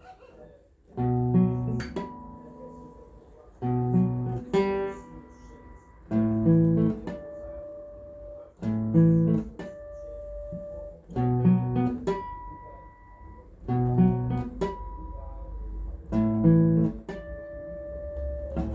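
Acoustic guitar playing a song's intro, starting about a second in: a repeating phrase of plucked bass notes and chords, about one phrase every two and a half seconds.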